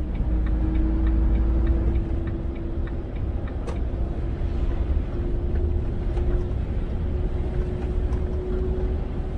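Inside the cab of a Volvo FH truck driving on a wet road: a steady low diesel engine drone with road noise and a steady hum, and a few light clicks.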